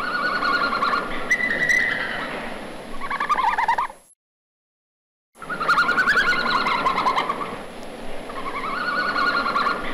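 Red panda calls: a run of high, wavering calls, each about a second long. They break off for about a second in the middle, then start again.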